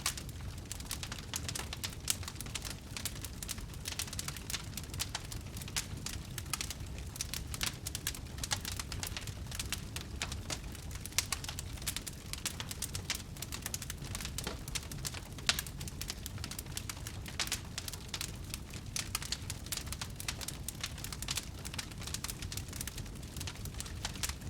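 Fire crackling steadily: dense, irregular pops and snaps over a low rumble.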